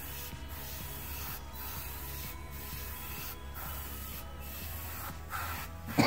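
Airbrush hissing as it sprays black base coat, the air cutting off briefly about once a second as the trigger is let go and pressed again, over a low steady hum.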